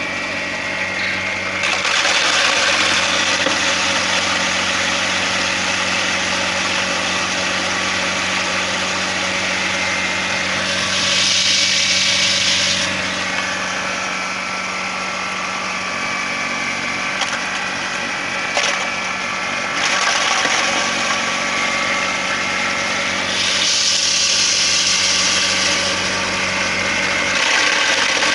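Homemade corn grinder with two spinning blades, driven by a recycled washing-machine motor, running steadily with a constant hum. Louder, hissy grinding stretches come and go several times, about 2, 11, 20 and 24 seconds in.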